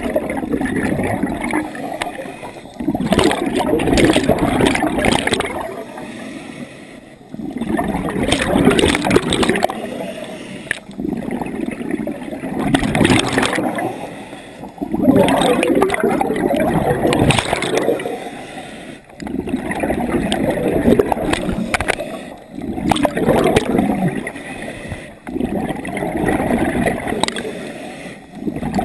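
Scuba regulator breathing heard underwater: exhaled bubbles stream out in a long noisy wash about every three and a half seconds, with short quieter gaps between them for the inhale.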